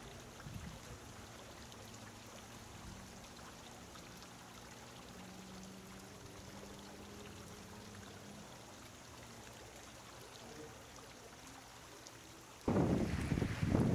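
Faint, steady trickling and splashing of a small garden fountain. About a second before the end, loud wind buffeting on the microphone cuts in abruptly.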